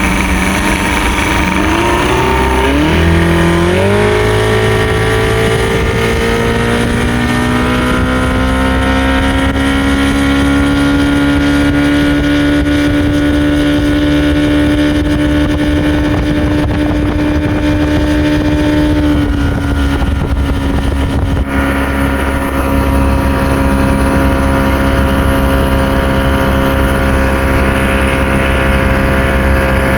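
Small fishing boat's motor speeding up in steps over the first few seconds, then running steadily at higher speed. About two-thirds of the way through it eases back a little and runs on steadily.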